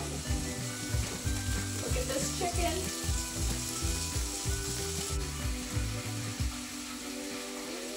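Chicken pieces deep-frying in hot oil in a cast iron skillet: a steady sizzle that softens about five seconds in.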